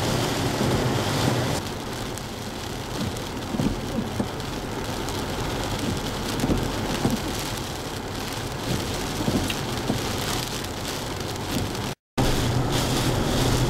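Hurricane rain pouring down in a steady hiss, with wind. A low vehicle hum is heard in the first second and a half and again after a brief cut-out near the end.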